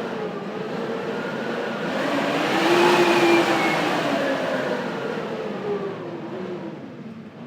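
Blizzard wind blowing in a gust. It swells to its loudest about three seconds in and then dies away, with whistling tones rising and falling over a rushing hiss.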